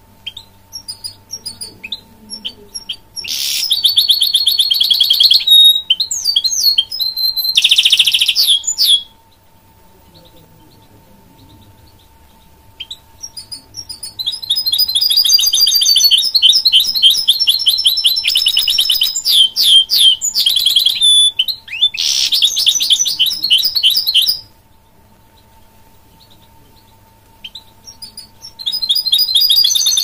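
Goldfinch hybrid (mule) singing in several loud bursts of rapid trills and twittering, the longest about seven seconds, with scattered single notes and short pauses between phrases. A faint steady hum runs underneath.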